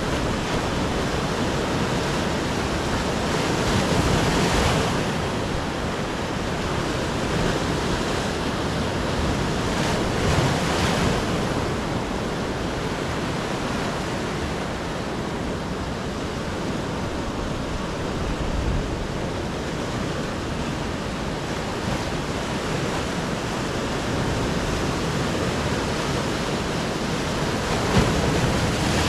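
Sea surf breaking and washing in continuously, with wind buffeting the microphone. The surf swells louder about four seconds in and again about ten seconds in.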